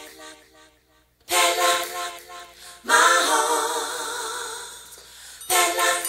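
Music recording: full, sustained chords that cut in and out, with short near-silent gaps between them. About three seconds in, a big chord swells up and rings out slowly, fading over about two seconds before the music comes back near the end.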